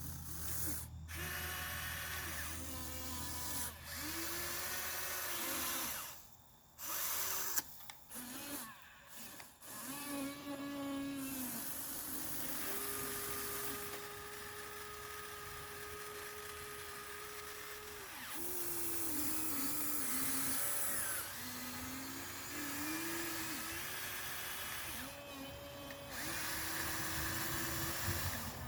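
Small electric motors of a Huina 1593 RC excavator whining in a series of short runs, the pitch bending up and down as the motors start and stop. One run holds steady for about five seconds in the middle.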